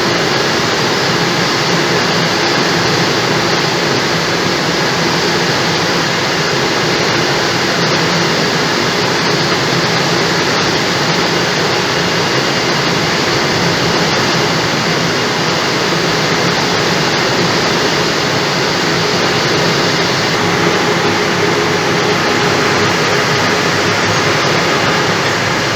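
Heavy dump truck's diesel engine running steadily at constant revs, a loud, even mechanical noise.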